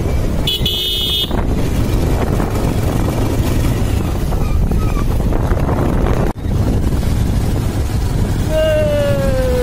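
Steady road and wind noise from a vehicle on the move. A short high-pitched horn toot sounds about half a second in, and near the end a longer horn sounds with its pitch sliding down.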